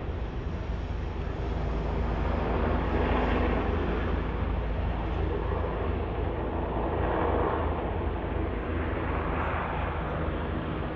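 Steady vehicle and traffic noise with a strong low hum, swelling a little in the middle.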